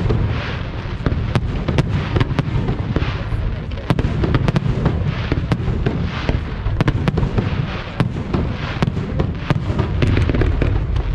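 Fireworks display: a dense, unbroken barrage of bangs and crackling from aerial shells and fountains, over a continuous low rumble.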